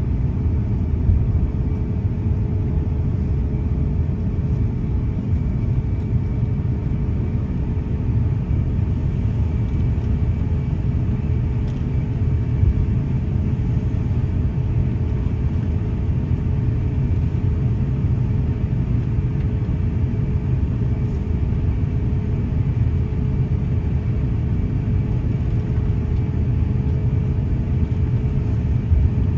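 Steady low rumble inside the cabin of an Airbus A350-900 airliner, with faint steady tones above it.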